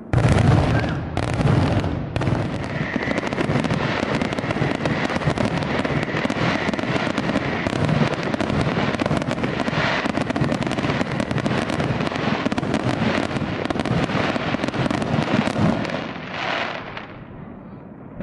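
Aerial fireworks bursting in a dense barrage: a rapid, continuous run of bangs and crackles that opens with a loud boom and eases off about sixteen seconds in.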